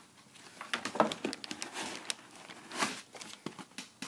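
Packaging crinkling and rustling in irregular bursts as sneakers are handled and their inserts pulled out, louder about a second in and again near the end.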